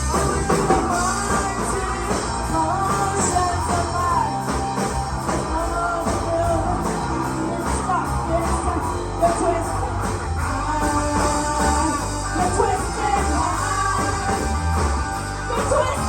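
Live rock band playing a song: drums with steady cymbal strokes and bass under a melodic lead line that bends in pitch.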